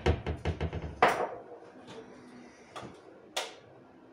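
Kitchen handling clatter: a quick run of small clinks and knocks that tapers off after about a second, then a few scattered knocks.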